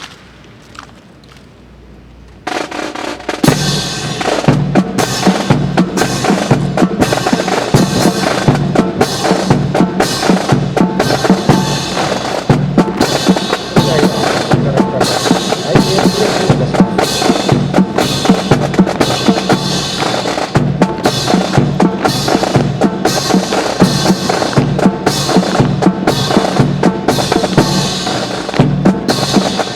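Marching drum line of snare and bass drums starting up about two and a half seconds in, then playing a steady, driving cadence.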